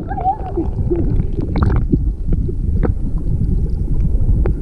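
Turbulent, bubble-filled water rushing over rocks, heard from underwater through a GoPro's housing: a dense low rumble with scattered pops and clicks, and a few short squeaky gurgles in the first second.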